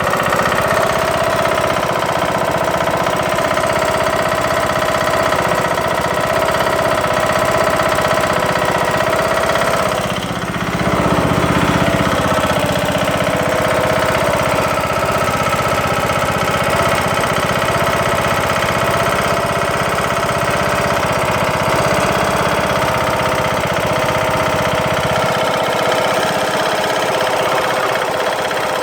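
Briggs & Stratton engine of a Craftsman LT2000 lawn tractor running with a loud knocking, after its broken camshaft and timing gear were replaced; the cause is not yet known. The engine speed dips briefly about ten seconds in, then recovers.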